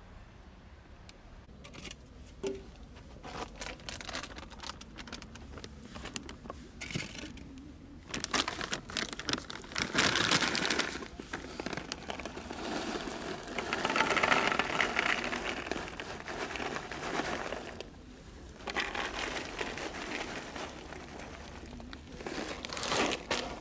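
Dry cat kibble being poured from a crinkling plastic bag into foam trays, in three long noisy bursts of bag rustle and pattering pellets.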